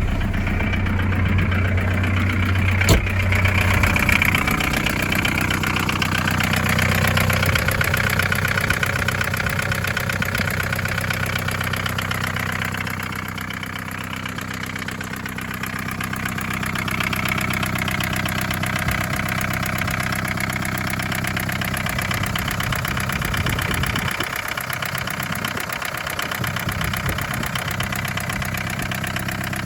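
1981 Isuzu Pup's C223 four-cylinder diesel engine idling steadily just after a hard cold start. A single sharp click comes about three seconds in.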